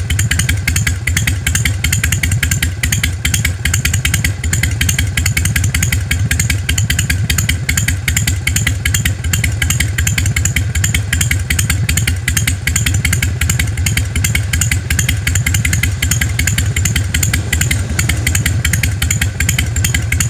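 Harley-Davidson Sportster 883R's air-cooled V-twin idling steadily with a slow, loping three-beat rhythm, through Vance & Hines Short Shots Staggered exhaust pipes. The lumpy three-beat idle comes from tuning with a Twin Tec module and an S&S E carburettor.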